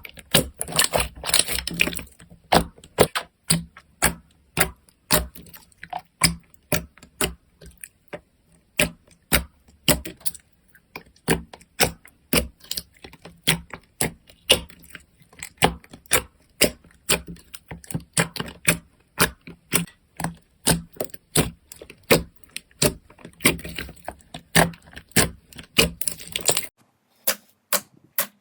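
Slime being squeezed and poked, giving a steady run of sharp clicking pops about two to three a second, with denser crackling near the start and again near the end.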